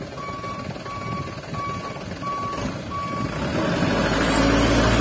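Dump truck's reversing alarm beeping in an even, repeating pattern, which stops a little over three seconds in as the truck's diesel engine revs up and runs louder with a steady hum and a high whine.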